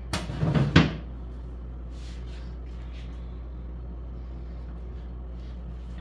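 Plastic refrigerator crisper drawer handled and pushed shut, a rustle ending in a sharp knock about a second in. After it, a steady low hum with a few faint ticks.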